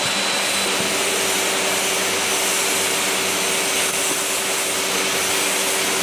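Steady whirring noise of running industrial machinery, with a low motor hum that comes in a little under a second in and holds steady.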